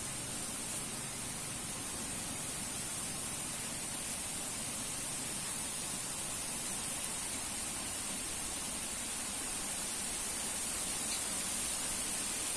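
Steady, even hiss with no distinct events, brightest high up.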